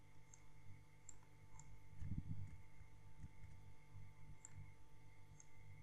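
Faint computer mouse clicks, about half a dozen spread irregularly over several seconds, over a low steady hum.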